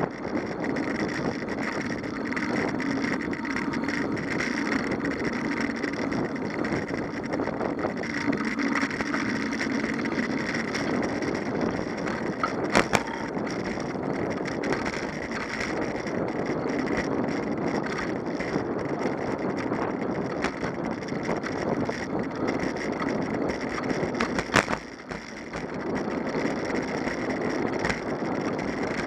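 Steady rolling noise of a bicycle ride: tyres on the road and then a rough park path, with wind and rattle. Two sharp knocks, one a little before halfway and one about four seconds from the end, the second followed by a brief drop in the noise.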